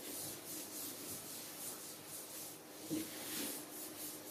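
Cloth duster wiping chalk off a chalkboard in quick back-and-forth strokes, a soft rhythmic rubbing hiss of about three strokes a second. A short low knock comes about three seconds in.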